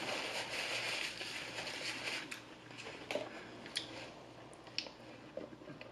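Close-miked chewing and mouth sounds of someone eating fast food, a steady wet chewing noise for the first couple of seconds, then a few small clicks and smacks as it quietens.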